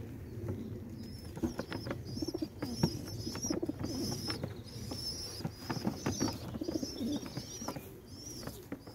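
Pigeons cooing in repeated low phrases, with small birds chirping high and fast over them.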